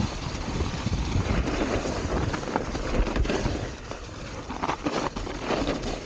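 Wind buffeting the camera microphone over the rumble of a mountain bike riding a snowy trail, with irregular knocks and rattles from the bike going over bumps.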